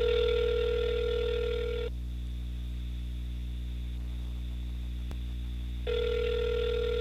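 Telephone ringback tone heard down the line: two rings, each about two seconds long, about four seconds apart. A steady low hum runs underneath, with a faint click between the rings. The call is ringing through and has not yet been answered.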